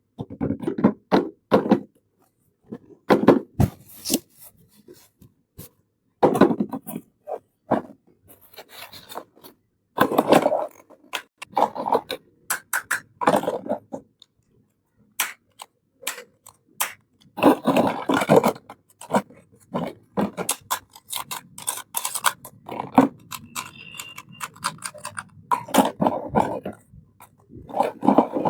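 Hands unboxing a miniature plastic toy kitchen set: packaging and small pieces scraped and rubbed in repeated bursts, with many sharp clicks and taps, between short pauses.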